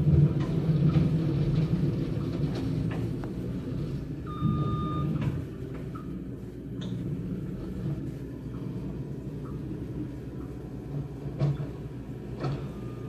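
Tracked skid-steer loader with a snow blade working, its engine rumbling steadily, loudest in the first couple of seconds, heard through window glass. A single short beep comes about four and a half seconds in.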